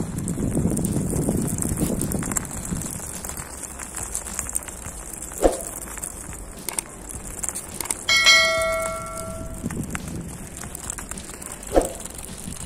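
A single bell-like metallic ring about eight seconds in, several tones together fading over about a second and a half, over steady background noise. Two short falling squeaks, one about halfway through and one near the end.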